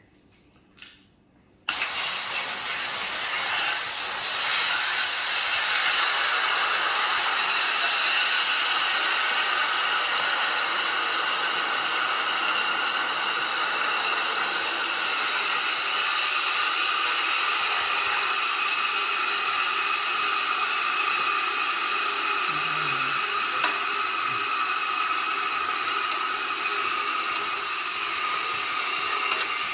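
Water poured steadily from a plastic bottle into an electric hot pot's stainless-steel basin, a continuous rushing hiss that starts suddenly about two seconds in.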